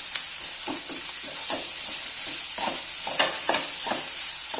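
Onions frying in hot oil in a pan, with a steady sizzle. They are being stirred, with several short scraping strokes against the pan.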